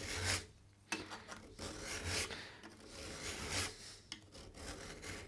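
Second-cut hand file pushed along the edge of a steel card scraper clamped in a vise, rasping in several slow strokes with short pauses between them. The file is jointing the factory guillotine-cut edge flat and square before a burr is raised.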